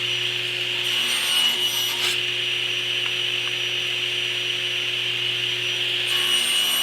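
Table saw running steadily and cutting dados in wood, with two passes through the workpiece: one about a second in and another near the end.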